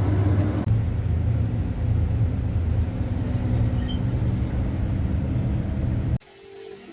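Steady low engine and road rumble heard inside a moving bus. It cuts off suddenly near the end, giving way to a much quieter scene.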